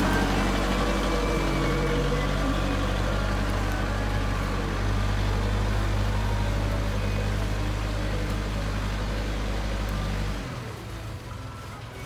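JCB 3CX backhoe loader's four-cylinder diesel engine running steadily as the machine drives off. About ten seconds in the low engine sound drops away suddenly and it becomes quieter.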